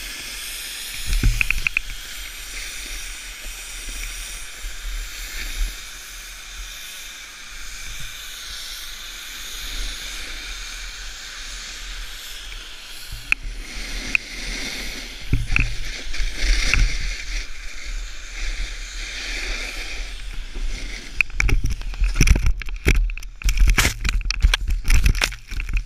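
Snowboard sliding and carving on packed snow, a steady scraping hiss with a fluctuating low rumble of wind on the microphone. About 21 seconds in, a rapid run of hard thumps and scrapes as the rider falls and tumbles in the snow.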